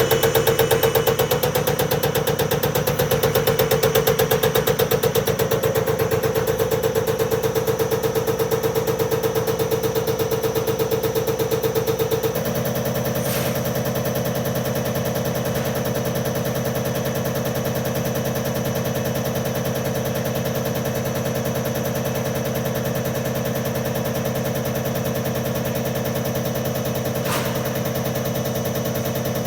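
Diesel injector test bench running, with an injector firing in a fast, even rattle over a steady hum. About twelve seconds in, the sound drops slightly and changes pitch abruptly, then runs on steadily.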